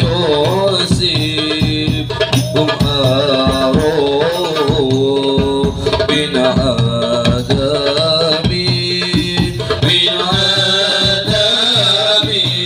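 Devotional sholawat singing to Middle Eastern-style hand-drum percussion, played loud through a sound system. The drums keep a steady beat under the melody. A steady high tone runs above it and gets stronger about ten seconds in.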